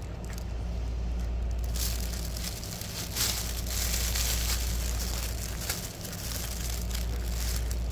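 Rustling and crinkling of a fabric pop-up cat tunnel as a cat rolls and squirms inside it, louder from about two seconds in.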